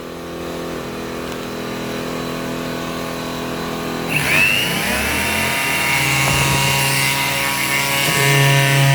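Blackridge BRG800 inverter generator's engine running steadily. About four seconds in, a 500-watt electric half-sheet sander is switched on: its motor whines up to speed and runs steadily, and the generator's engine grows louder as it takes the load.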